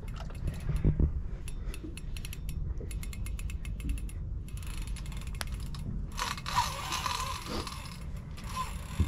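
Fishing reel clicking rapidly as it is worked against a big hooked fish, the ticks densest in the first half, over a steady low rumble.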